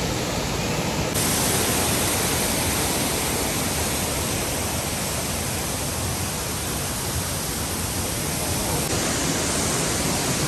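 Waterfall rushing: a steady, loud roar of falling water, brightening slightly about a second in.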